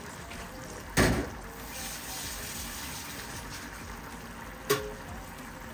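Tomato curry sauce thinned with water, bubbling at a boil in a pot, making a steady bubbling hiss. Two sharp clicks cut through it, a loud one about a second in and a smaller one near the end.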